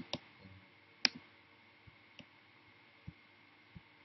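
A few scattered sharp clicks from working a computer's mouse and keyboard: a strong click at the start, a quick pair about a second in, then several fainter ones spread apart.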